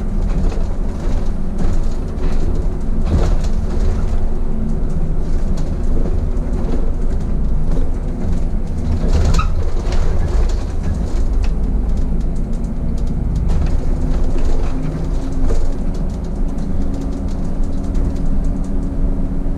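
City bus driving, heard from the driver's cab: engine running under a heavy low road rumble, its note shifting in pitch now and then, with a few knocks and rattles from the body.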